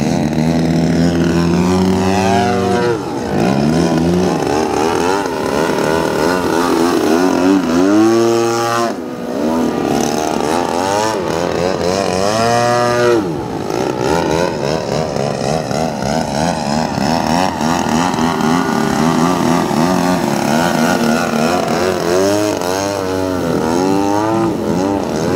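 Engine and propeller of a giant-scale 89-inch Slick radio-control aerobatic plane in flight. Its pitch swoops up and down again and again as the plane sweeps past and changes power, and the sound dips briefly about 3, 9 and 13 seconds in.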